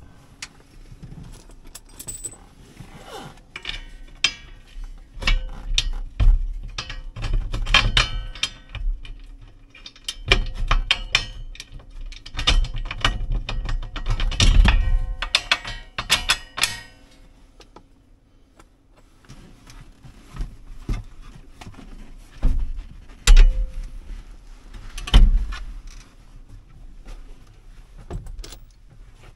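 Metal parts and hand tools clinking and rattling while a seat and its bracket are bolted up, with dense clusters of clicks and short metallic rings, then scattered knocks in the later part.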